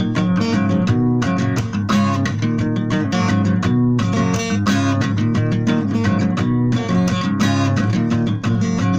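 Strummed guitar chords in an instrumental passage of a song, with no singing. The strokes come regularly, a couple a second.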